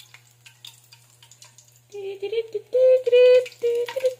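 Faint light ticks, then from about halfway a high-pitched voice in several short held notes, the loudest sound, stopping just before the end.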